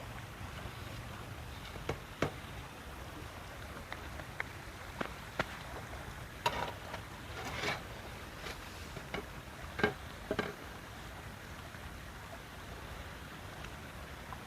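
Scattered light clicks and knocks, about a dozen at irregular intervals, over a steady low background hiss, then only the hiss for the last few seconds.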